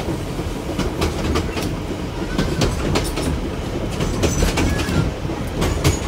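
Heritage railway train running along the track: a steady rumble with irregular clicks and knocks of the wheels over the rail joints.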